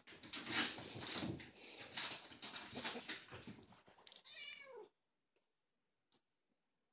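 Irregular scuffling and rustling noises, then a house cat meows once, a short call falling in pitch, about four seconds in.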